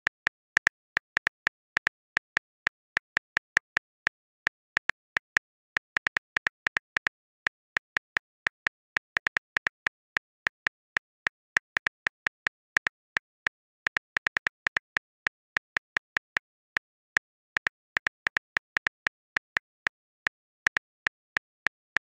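iPhone on-screen keyboard key-click sounds, one short click per letter as a text message is typed. The clicks come in a quick, uneven run, several a second, with a few brief pauses.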